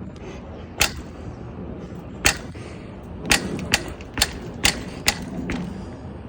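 About eight sharp pops from the front end of a mountain bike, at irregular intervals and coming closer together in the second half, over a steady low background noise. The owner traces them to the RockShox Pike suspension fork, having found no crack in the frame and kept the noise after renewing the headset bearings.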